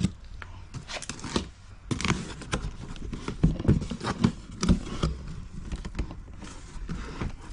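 A cardboard box being handled and opened: irregular knocks, scrapes and rustles of cardboard.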